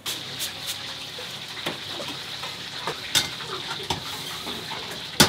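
Restaurant kitchen cooking: food sizzling and being stirred in a pan, with a steady hiss broken by light clinks and knocks of utensils against metal, and one sharp clack near the end.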